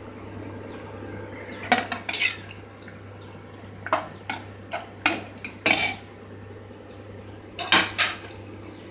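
Steel ladle clinking and scraping against the rim and sides of an aluminium pressure cooker as chopped tomatoes are tipped in and stirred into cooked dal. About a dozen sharp, irregular clinks come in small clusters.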